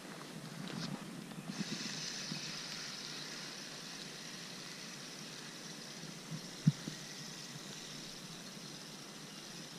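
Spinning reel being wound in on a fishing rod: a steady whirring hiss that starts suddenly about a second and a half in. Rod-handling rustle comes at the start, and one sharp click comes about two-thirds of the way through.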